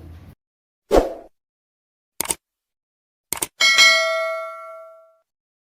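Outro sound effects of a subscribe-button and notification-bell animation: a soft thud, a quick double click, two more clicks, then a bright bell-like ding that rings out and fades over about a second and a half.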